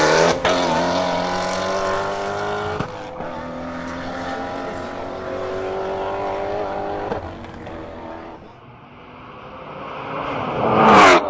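A Ford Mustang GT350, with its 5.2-litre flat-plane-crank V8, and a BMW M340i, with its turbocharged straight-six, accelerating flat out down a quarter-mile drag strip. The engine pitch rises through each gear and falls back at the upshifts, about 3 and 7 seconds in. Near the end, a car passes close by with a loud rise and fall.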